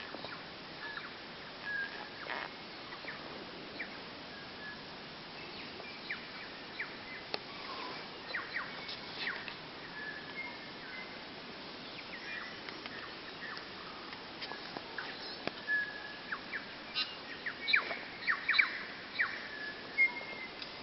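Tui singing: scattered short whistled notes, sharp clicks and chips, growing busier and louder near the end, over a faint steady hiss.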